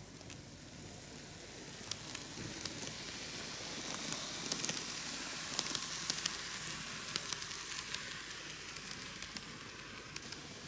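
Seibu 4000 series N gauge model train running by on curved track: a steady whirring, rolling hiss with scattered sharp clicks, growing louder to a peak about halfway through as it passes close, then fading as it moves away.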